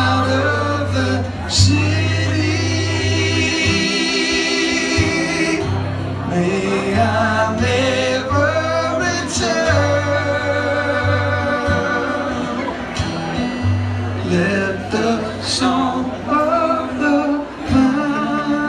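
Live folk-rock band playing: male voices singing held, wavering notes over strummed acoustic guitar, low bass notes and drums.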